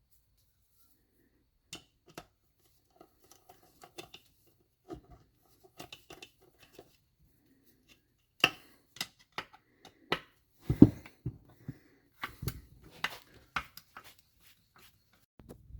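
Hand tools working on a Tomos moped engine's crankcase as the case screws are undone and the parts handled: a scatter of short clicks, with sharper, louder knocks in the second half.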